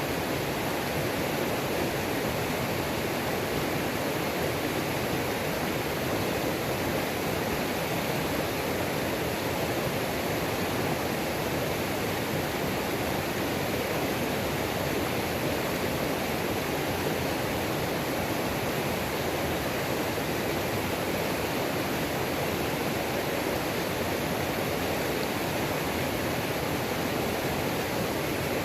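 Waterfall on a mountain creek, a steady, even rush of falling water.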